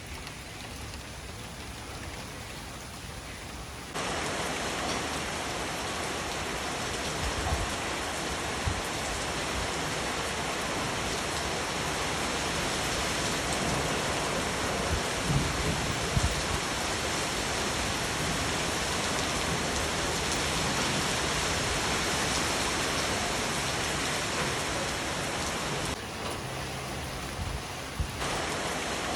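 Steady rain pouring down, an even hiss of many drops. It turns abruptly louder about four seconds in and drops back briefly near the end, with a few low thumps in between.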